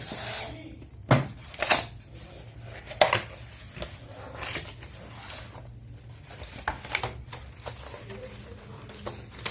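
A wired keyboard and its packaging being handled: rustling with a few sharp clacks and knocks, three louder ones in the first three seconds, then lighter scattered handling noises.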